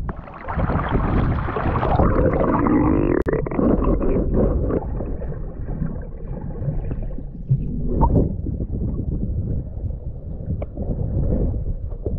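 Choppy sea water sloshing and gurgling around an action camera held at the surface by a swimmer, the camera dipping under and back up, heard as a muffled, low rumble. A sharp click sounds about three seconds in.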